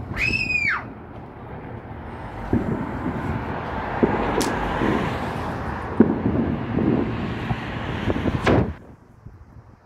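Fireworks: a short whistling firework rising and falling in pitch at the start, then several seconds of rumbling with crackles and a few sharp bangs that stops suddenly near the end.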